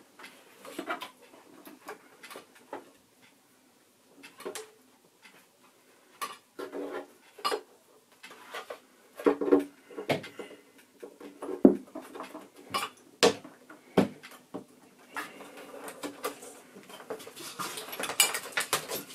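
Irregular clicks, knocks and light rattles of plastic and metal parts of a Super 8 projector being handled and fitted back together, with denser scraping and rattling near the end.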